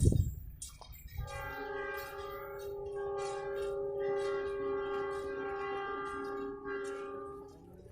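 Locomotive air horn sounding one long held multi-note chord for about six seconds, cutting off near the end. It is preceded by a brief low thump at the very start.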